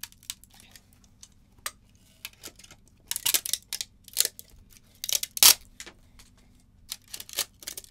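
Diagonal cutters crunching and snapping plastic support material out of a 3D-printed skull planter: a string of irregular sharp snaps and cracks, the loudest about five and a half seconds in.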